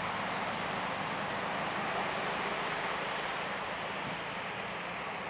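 Steady city street noise: an even hiss of traffic with a low engine hum beneath it, easing slightly near the end.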